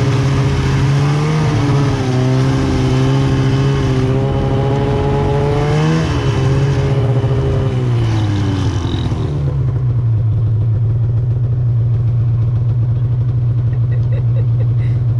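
Mountain snowmobile engine running at a steady speed while towing a snow tube. About six seconds in the revs rise briefly, then fall away over a few seconds to a steady idle as the sled stops.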